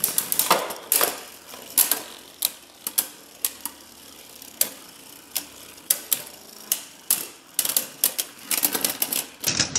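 Three left-spin Beyblade Burst spinning tops clacking against each other and the plastic stadium wall in sharp, irregular clicks, several a second, coming thicker near the end.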